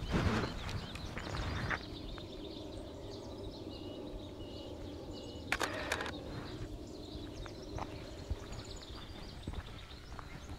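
Quiet rural outdoor ambience with small birds chirping. A bird gives a short high note three times about four to five seconds in, and there is a sharp click about five and a half seconds in. The first two seconds are louder and noisier.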